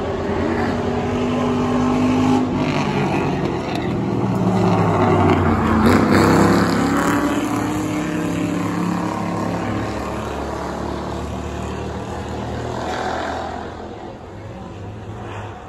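V8 engines of Crown Victoria–type stock cars racing past on a short oval. The engine notes rise and fall in pitch as the cars come by, growing loudest about six seconds in and then fading as they pull away.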